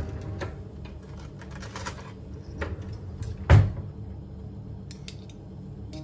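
Batter and melting butter sizzling in a non-stick frying pan, with scattered crackling clicks and one loud dull knock about three and a half seconds in.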